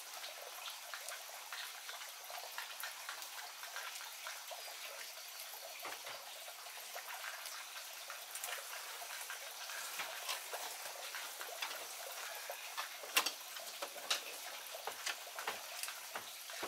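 Leaves rustling and small irregular snaps and clicks as chrysanthemum flower heads are picked off the bush by hand, over a faint steady hiss. The sharpest click comes about thirteen seconds in.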